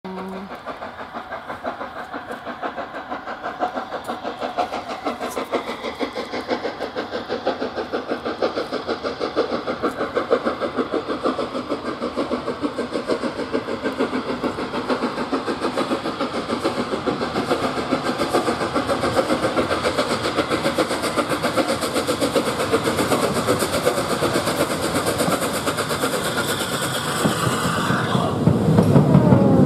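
Flying Scotsman, an LNER A3 three-cylinder steam locomotive, working steam as it approaches, its exhaust chuffing in a rapid, even beat that grows steadily louder. Near the end it passes right beneath, and the beat gives way to a louder, deeper rumble.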